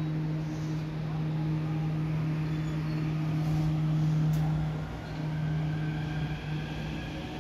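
JR West 223 series electric commuter train pulling out of the station with a steady low hum and the rumble of wheels on rails. A faint whine rises in pitch in the second half as it gathers speed.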